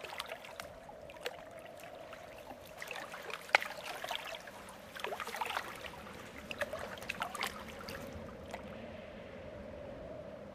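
Sea water splashing and lapping around a wooden rowing boat, with scattered knocks from the oars; the knocks die away near the end, leaving a faint steady wash.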